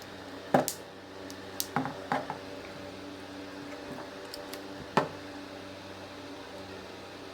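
Scattered small clicks and knocks of hands handling phone parts and tools on a workbench, the loudest about half a second in and again about five seconds in, over a steady hum.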